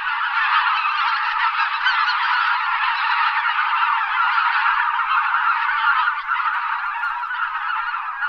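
Flock of greater white-fronted geese calling, a dense chorus of overlapping honks with no pauses.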